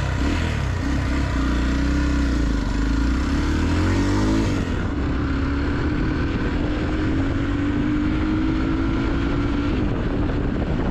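Hero XPulse motorcycle with a modified exhaust running under way, its engine note climbing steadily, dropping about four and a half seconds in, then climbing again.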